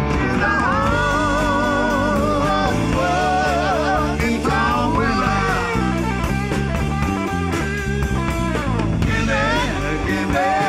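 Live rock band playing an instrumental break: lead guitar phrases of bent, wavering notes over bass and drums.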